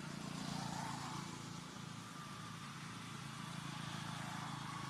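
A motor vehicle's engine running steadily nearby, a low hum over road noise.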